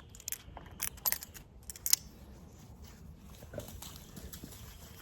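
Sharp metallic clicks and taps, four or so in the first two seconds, then softer handling noise, as a makeshift tool is worked onto the bar bolt of a battery pole mini chainsaw to loosen it and refit the thrown chain.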